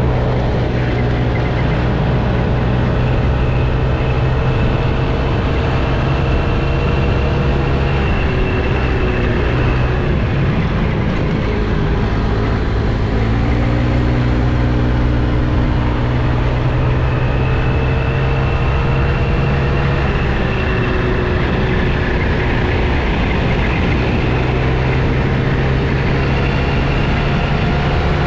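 Scooter engine running at road speed, with heavy wind and road noise over the microphone. The engine note drifts slowly up and down as speed changes, with a faint high whine that comes and goes.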